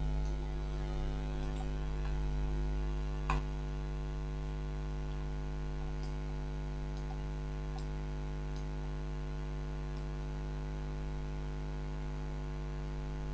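Steady electrical mains hum picked up by the microphone, with one sharp click about three seconds in and a few faint ticks after it.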